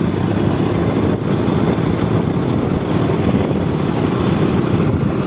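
Steady rumble of a KTM motorcycle riding slowly, with its engine running and wind rushing over the microphone.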